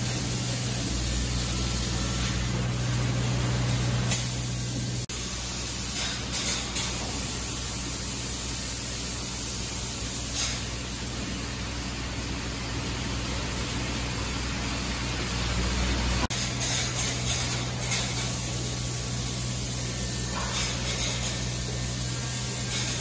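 Spray foam gun hissing steadily as closed-cell polyurethane foam is sprayed onto sheet-metal ceiling and walls, over a steady low hum. The sound changes abruptly about five seconds in and again about sixteen seconds in.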